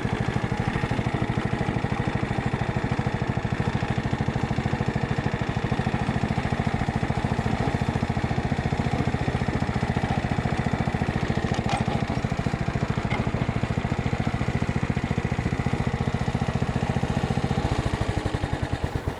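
Riding lawn mower engine running steadily at a low, even speed, then stopping near the end, its firing slowing and trailing off as it dies.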